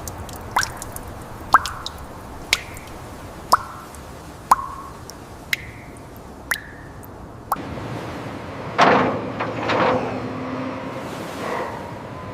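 Water dripping, about one drop a second, each drop a sharp tick with a short ringing plop. About nine seconds in there is a louder, rougher noise that lasts roughly a second.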